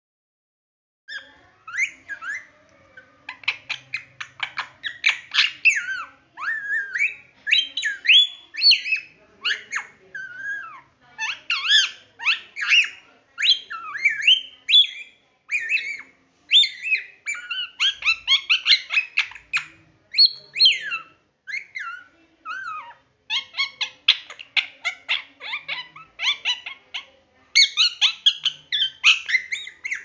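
Young rose-ringed parakeet chattering: fast runs of short, high calls that sweep up and down, with brief pauses, starting about a second in.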